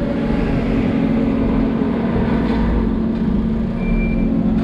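Diesel engine of a Hidromek 140LC crawler excavator running steadily under work, with a brief high tone about four seconds in.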